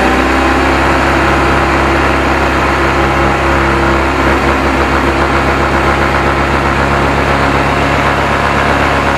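K-Lion Santa 200 ATV engine held at steady raised revs in gear, spinning the drive chain and rear axle with the wheels off the ground so chain lube can be sprayed on.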